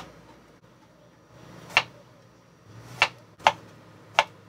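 Kitchen knife cutting eggplant into short strips, the blade knocking on a wooden chopping board about five times at uneven intervals.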